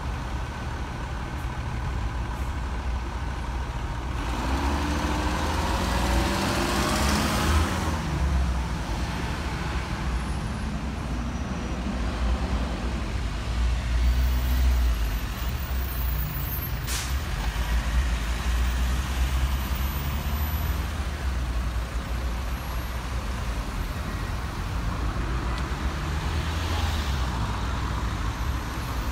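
Rush-hour traffic: diesel bus and car engines rumbling as vehicles queue and pull away, with one engine note rising as a vehicle accelerates about four seconds in, and short air-brake hisses.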